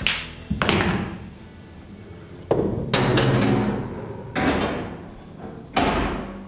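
Background music made of heavy struck hits, about six of them, each ringing on for around a second over a low sustained tone.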